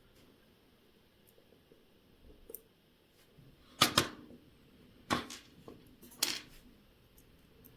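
Small sharp metal clicks of watchmaker's tools handling a watch on the bench: a faint one, then three louder ones about a second apart.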